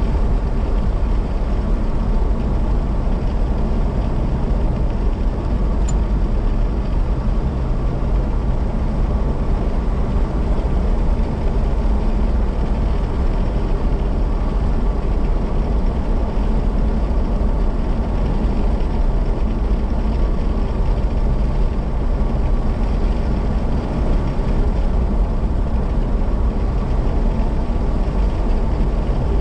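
Steady low rumble of a car driving at road speed: engine and tyre noise, heard from inside the cabin.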